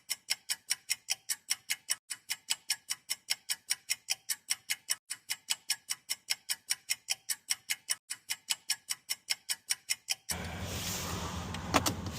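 Clock-style ticking, very even at about four ticks a second with dead silence between. It cuts off abruptly about ten seconds in, giving way to a steady outdoor hum with two sharp clicks near the end.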